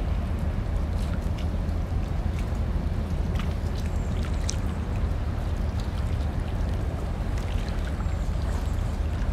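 Steady low rumble with a rushing, water-like noise from the cruise ship Silver Shadow at the quay, with a few faint ticks.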